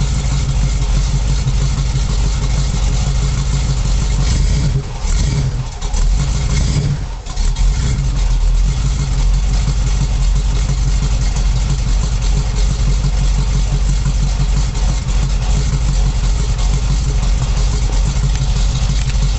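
Weiand-supercharged 350 small-block V8 of a 1979 Chevrolet Camaro idling steadily through aftermarket headers and stock mufflers, shortly after its first cold start after winter. The sound dips briefly twice, about five and seven seconds in, then settles back to the steady idle.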